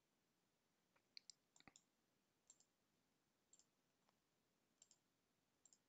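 Faint, scattered computer mouse clicks, several short sharp clicks a second or so apart, with near silence between them.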